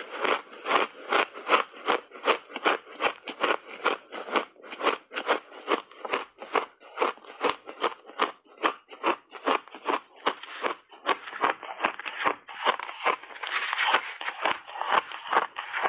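Crisp crunching of a mouthful of blended shaved ice being chewed, a steady run of crunches about three a second.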